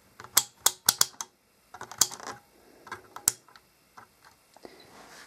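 Digital multimeter's rotary range selector being turned by hand to the 200 mA setting, giving a series of sharp plastic clicks, most in the first second and a half and a few more around two and three seconds in, with light handling of the meter and its test leads.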